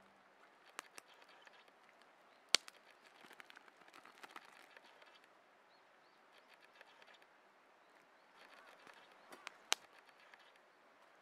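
Faint crinkling of a plastic zip-lock bag being pulled open and handled, with a few sharp clicks, the loudest about two and a half seconds in and another pair near the end.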